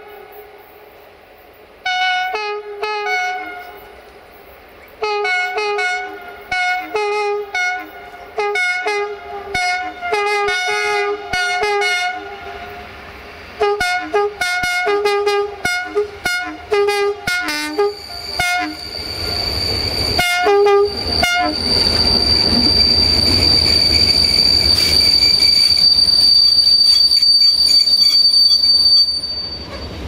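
Multi-tone air horn of CFR diesel-electric locomotive 65-1300-6, played as a long run of short rhythmic toots with a few longer blasts. Then the train passes close, with a steady high-pitched wheel squeal over the rumble of the engine and the coaches.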